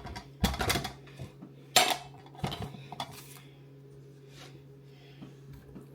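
Kitchen utensils and dishes clattering and clinking, a handful of sharp knocks in the first three seconds, the loudest just before two seconds in, then only a few faint taps.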